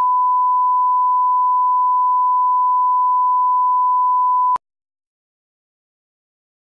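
A steady 1 kHz reference test tone, one pure pitch, of the kind played with colour bars; it cuts off suddenly with a click about four and a half seconds in.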